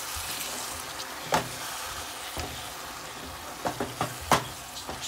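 Potatoes and spinach in a tomato sauce sizzling in a pan while being stirred, with a few sharp knocks of the stirring utensil against the pan, the loudest near the end.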